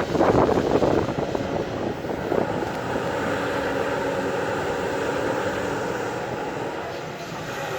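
JCB earthmover's diesel engine running, louder and rougher for the first second or two, then settling to a steady drone.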